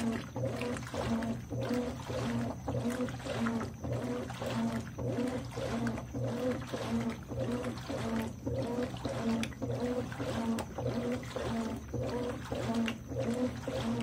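Consul 13 kg top-load washing machine agitating a load of towels in water. The motor hums and the agitator swings back and forth about twice a second while the water sloshes.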